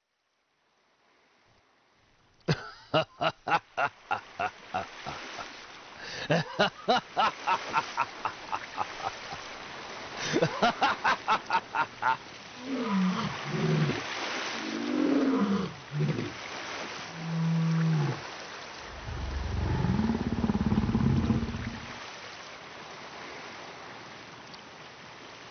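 A string of animal-like calls voiced for the dog: three bouts of rapid pulsed calls at about five a second, then several long calls gliding up and down in pitch, then a low roar lasting about three seconds.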